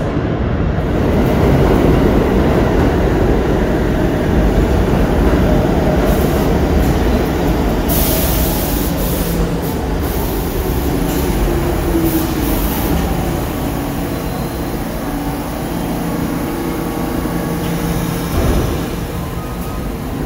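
New York City subway train running through the station: a steady rumble of wheels on rail with the whine of its motors falling and then rising again near the end. A few bright hissing bursts come about eight to thirteen seconds in.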